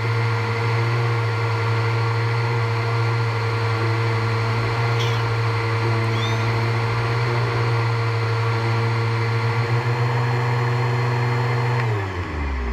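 Vacuum cleaner running with a steady motor hum and rushing air, then winding down with falling pitch near the end as it is switched off.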